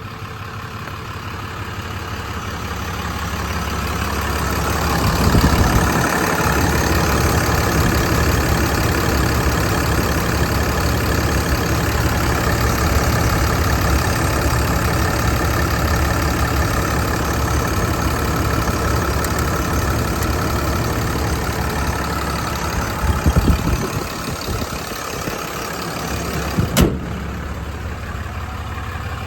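Ram 5500's 6.7 L Cummins straight-six turbo diesel idling steadily, growing louder over the first few seconds and then holding. A few brief thumps and one sharp click are heard along the way.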